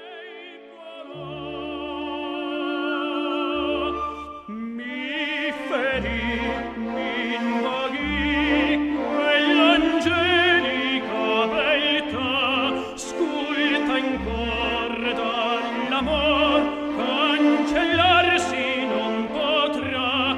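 Opera music: an orchestra holds sustained chords for the first few seconds, then a solo opera singer with strong vibrato enters about four and a half seconds in and sings over the orchestra.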